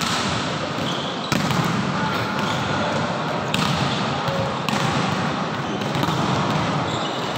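Volleyballs being spiked during a warm-up drill: several sharp smacks of hand on ball and ball on the court floor, the loudest a little over a second in, over a steady din of the hall with voices.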